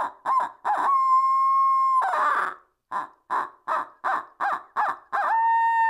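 Owl locator call for turkey hunting, The Grind's Night Glider, sounded as a run of short hoots. About a second in comes a long held hoot that slides down at its end, then more short hoots, and another long hoot starts near the end.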